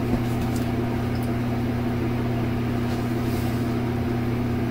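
A steady low machine hum, with a few faint light clicks in the first second and again about three seconds in.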